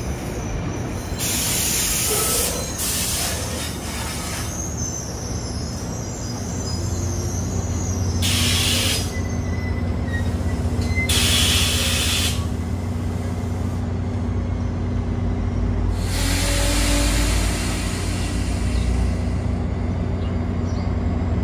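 NJ Transit commuter train of Comet coaches rolling slowly along the platform. A low, steady drone grows stronger about six seconds in, and short bursts of hissing air come and go several times.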